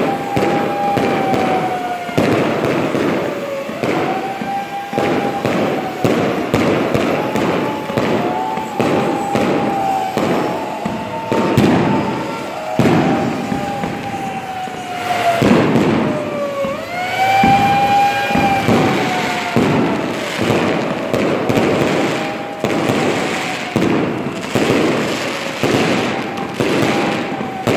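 Fireworks display: a continuous run of whistling fireworks, each whistle bending and falling in pitch over a second or two, one after another, over steady crackling and bangs.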